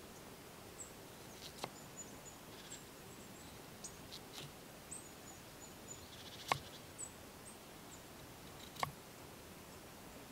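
Knife blade knocking sharply on a wooden log-round cutting board now and then as food is sliced, the loudest knock about two-thirds of the way in. Faint short high bird chirps come and go throughout.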